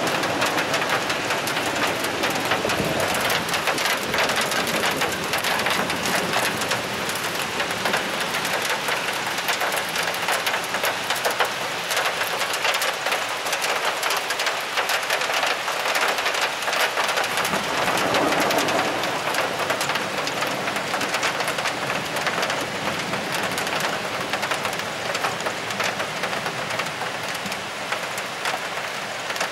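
Heavy thunderstorm rain falling in a dense, steady patter of drops. A low rumble of thunder swells briefly a little past the middle.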